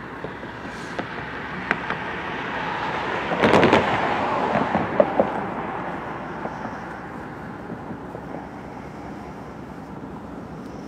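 A vehicle passing: its noise swells to a peak about four seconds in, with a quick cluster of sharp knocks at its loudest and a few single knocks before and after, then fades away.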